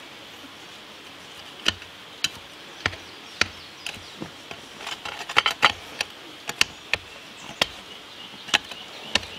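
A shovel blade jabbing down into rocky dirt, trimming a trench: an irregular run of sharp scraping knocks, one or two a second, with a quick flurry about halfway through. A steady high insect buzz runs underneath.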